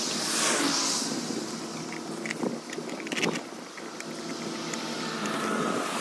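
Road vehicles passing by, their rushing noise swelling and fading, with a few light clicks and knocks around the middle.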